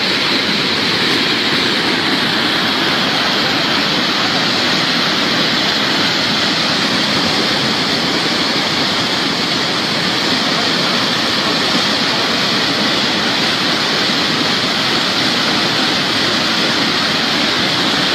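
Muddy flash-flood water rushing down a rocky riverbed: a loud, steady rushing noise of torrent water.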